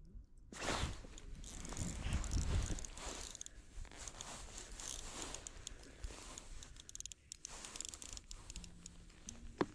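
Close rustling and crackling of a winter jacket and gloved hands handling an ice-fishing rod and spinning reel, with scattered small clicks and one sharp click near the end.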